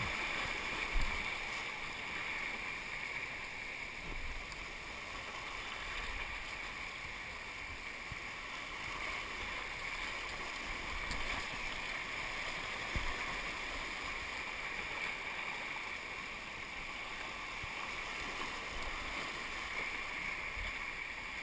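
Whitewater rapids of a rocky creek rushing steadily, heard close from the water's surface, with a couple of dull low knocks about a second in and again about halfway through.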